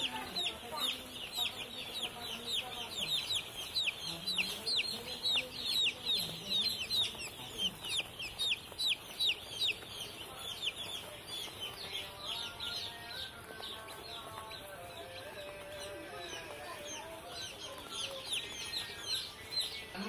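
A flock of day-old broiler chicks peeping constantly, many short falling cheeps overlapping, busiest in the first half and thinning out later.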